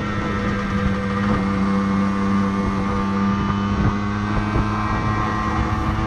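Yamaha TZR125's single-cylinder two-stroke engine running at a steady pitch while the motorcycle cruises.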